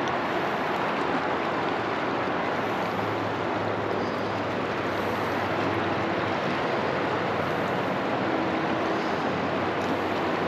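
River water rushing steadily over a shallow riffle, an even hiss with no breaks.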